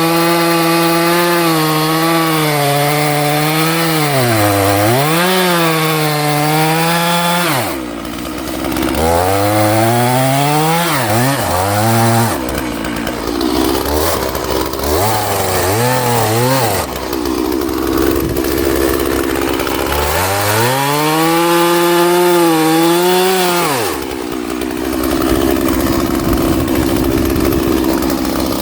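Stihl MS311 two-stroke chainsaw with a freshly sharpened chain run at full throttle through firewood logs, its pitch sagging as the chain bites. About eight seconds in it drops back and is blipped up and down between cuts, then runs flat out again for another stretch about twenty seconds in before easing off.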